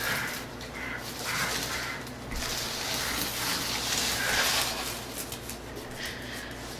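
Dogs, a beagle and a small shaggy terrier-type dog, making rough, breathy noises that come and go in short spells.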